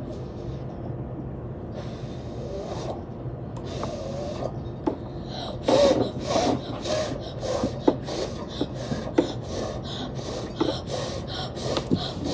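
A child blowing on a cup of hot instant noodles to cool them, in short repeated puffs of breath that come quickly, about three a second, from about halfway through. A few light clicks sound in between.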